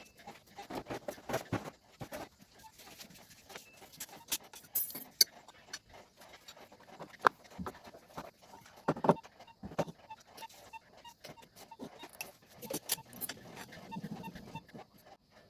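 Metal automatic-transmission parts clinking and knocking as the clutch pack is taken apart by hand: irregular clicks and knocks, loudest about five and seven seconds in.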